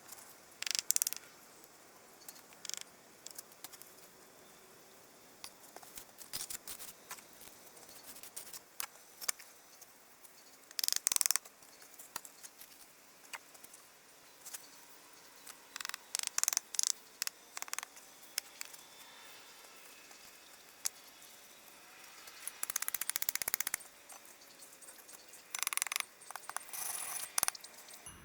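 Irregular light clicks, taps and scratches in short clusters over a faint steady hiss. The loudest are a cluster about 11 seconds in and a rapid run of clicks from about 22 to 24 seconds in.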